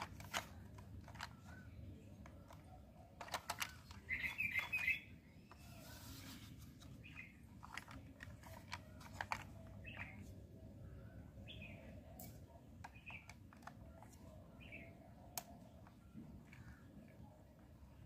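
Small birds chirping, short calls every second or two, with a louder run of chirps about four seconds in. Light clicks and knocks from a hard plastic toy car being handled and turned over are mixed in.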